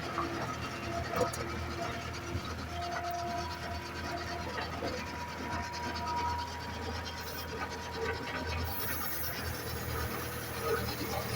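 Skid steer running with a steady low engine hum, overlaid with metallic squeaks, creaks and clicks, including a few long thin squealing tones, as the machine moves the old metal chicken nest in its bucket.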